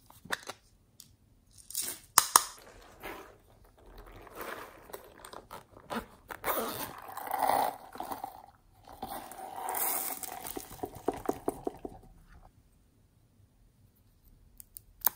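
Small plastic slime containers being handled and snapped open, with several sharp plastic clicks, the loudest about two seconds in. These are followed by a long stretch of crunchy, crackling handling noise, and another sharp click at the end.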